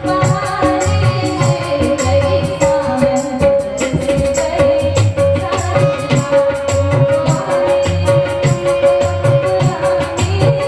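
Live Indian music: a woman singing, accompanied by a harmonium and an electronic keyboard, with one note held steadily over a regular percussion beat.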